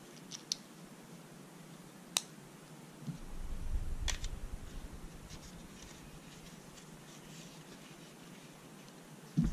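Small plastic clicks from a Specialized Propero 3 cycling helmet's chin-strap buckle being fastened, the sharpest about two seconds in. Then another click and handling sounds as sunglasses are picked up and put on, over a low rumble that starts about three seconds in.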